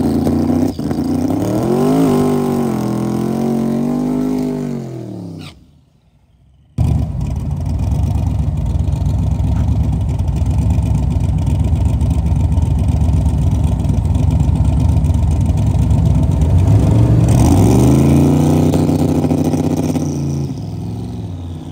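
Twin-turbo LS V8 of a Camaro drag car idling and being blipped at the starting line, the pitch rising and falling in short revs. The sound drops out for about a second a few seconds in, then the engine runs steadily before more revs near the end.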